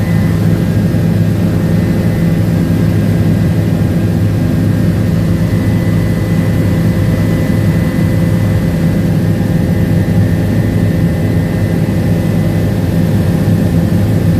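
Helicopter in flight heard from inside the cabin: a loud, steady drone of engine and rotor, with a steady high whine on top.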